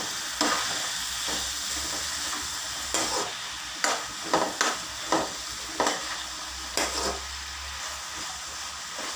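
Diced onions, potatoes and red bell peppers sizzling in a pan with a steady hiss while they are stirred, with irregular scrapes and knocks of the utensil against the pan.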